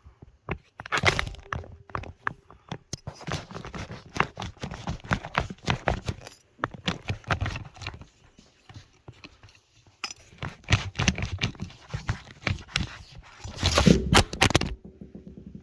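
Irregular metal clicks, knocks and scraping from handling a hand pipe-crimping tool and the crimped fitting, in uneven clusters with short pauses and the loudest clatter near the end.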